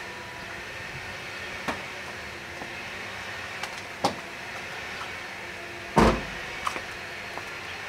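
Mazda MX-5 four-cylinder engine idling steadily through a Goodwin Racing Street Single exhaust. A few sharp clicks and one louder thump about six seconds in break through the idle.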